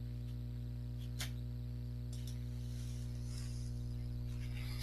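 Steady electrical mains hum with a stack of overtones, and one faint click about a second in.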